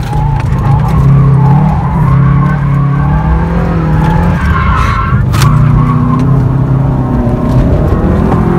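Subaru WRX's turbocharged flat-four engine heard from inside the cabin, its revs rising and falling as the car is driven sideways through a turn, with tyres squealing on the pavement.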